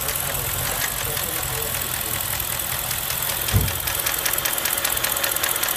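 BMW 645's N62B44 4.4-litre V8 running with a fast, even knock, which the owner puts down to scored cylinder walls. A single dull thump sounds a little past halfway.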